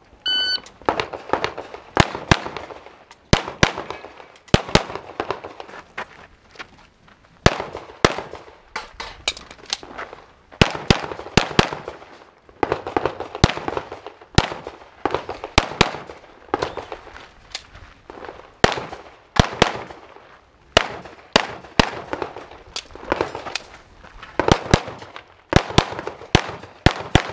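A shot timer's start beep, then rapid pistol fire for the rest: shots in quick pairs and strings, broken by short pauses between positions, as a practical shooting stage is run.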